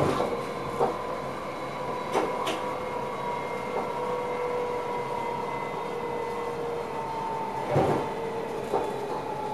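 Electric passenger train running, heard inside the driver's cab: a steady whine from the drive over a rumbling noise, with scattered knocks and clicks. The whine drops slightly in pitch about three-quarters of the way through.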